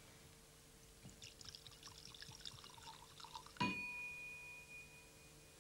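Calvados poured into a brandy snifter, a faint gurgle and splash of spirit for about two and a half seconds, then a single clink with the glass ringing clearly and fading over about a second and a half.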